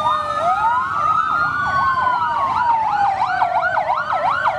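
Several emergency sirens sounding together: a fast warbling siren cycling up and down about three times a second over slower wails that rise and fall.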